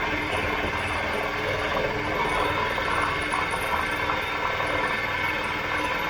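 Belt-driven piston air compressor running steadily, with a fast, even beat.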